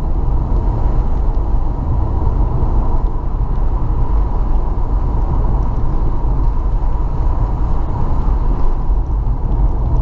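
Steady low rumble of a car, heard from inside the cabin, with no changes or strokes.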